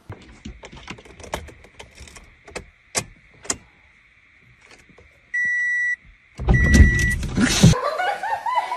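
Scattered light clicks and knocks. Then a car's electronic beep held for about half a second, a second short beep with a loud rushing burst, and near the end quick rising-and-falling voice sounds like laughter.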